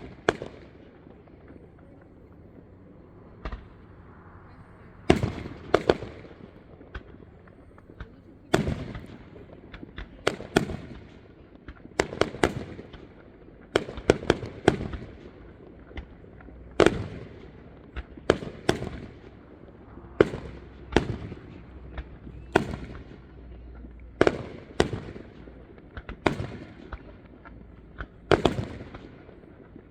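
Aerial fireworks shells bursting in a steady barrage: sharp booms, each with a short trailing echo. After only one burst in the first five seconds, they come about once a second or faster.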